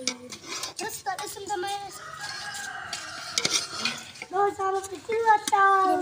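Steel plates and a large steel serving pot clinking as rice is dished out, with a rooster crowing: a long held call in the second half.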